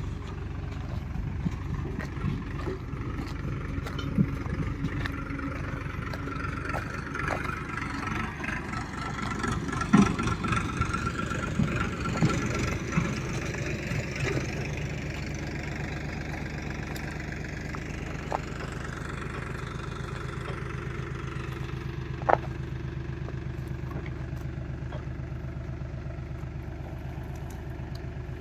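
Diesel engine of a farm machine running, with scattered knocks and clatter in the first half. From about halfway on it settles into a steady idle, with one sharp knock a few seconds later.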